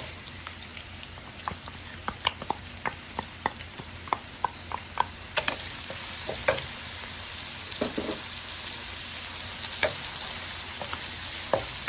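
Minced garlic and lemongrass sizzling in hot oil in a frying pan, with a utensil clicking and scraping against the pan as they are stirred. The clicks come quickly in the first half and thin out later.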